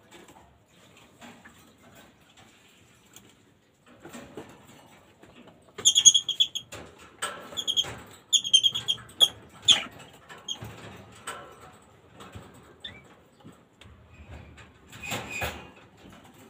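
African lovebirds chirping in a quick run of short, high-pitched calls from about six to ten seconds in, amid scratchy rustling and clicks. A louder burst of rustling comes near the end.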